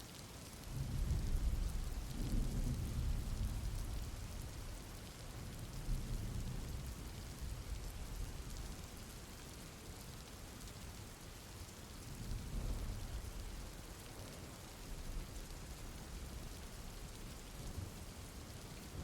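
Steady rain with low rumbling thunder. The loudest roll of thunder comes in about a second in and fades over several seconds, and smaller rumbles follow later.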